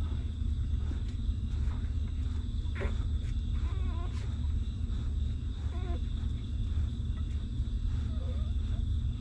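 Newborn puppies nursing, giving a few short wavering whimpers over a steady low rumble.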